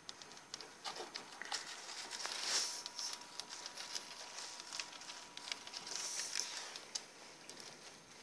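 Pet rats' claws scratching and clicking on a wire-mesh cage as they climb about: a patter of small quick clicks, with louder rustling about two and a half seconds in and again around six seconds in.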